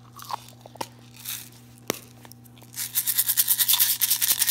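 A few light clicks and one sharp tap, then nearly two seconds of fast, even scratching, about a dozen strokes a second.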